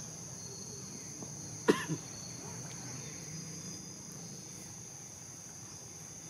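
Steady high-pitched drone of insects. Two short sharp sounds come close together, a little under two seconds in; the first is the loudest thing heard.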